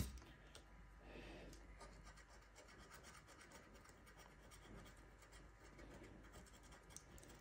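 Fingernail scratching the coating off a Gratta e Vinci lottery scratch card: faint, rapid rasping strokes of nail on card.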